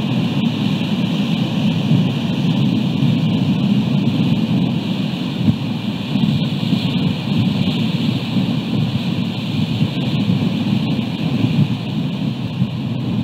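Wind buffeting an outdoor camera microphone: a steady, rough rumble with a constant hiss above it.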